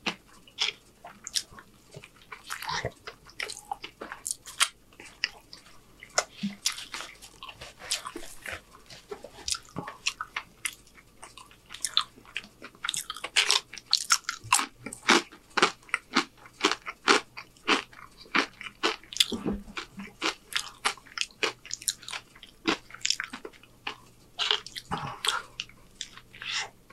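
A person crunching and chewing crisp tortilla chips, with many quick, sharp crackles coming in irregular runs.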